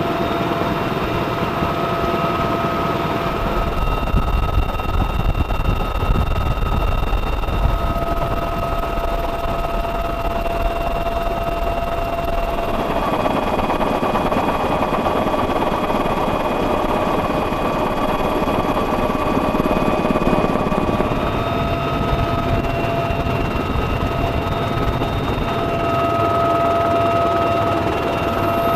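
Military helicopters and tiltrotor aircraft in flight: continuous rotor and turbine noise with a steady high whine. The mix of tones shifts abruptly a few times.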